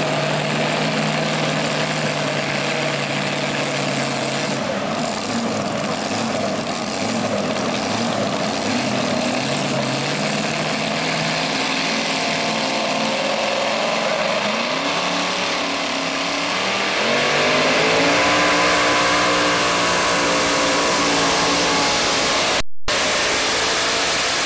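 Supercharged engine of a two-wheel-drive pulling truck idling with a steady low note while hooked to the sled. About two-thirds of the way in, the revs climb and the engine runs loud and high-revving under load as the truck pulls the sled.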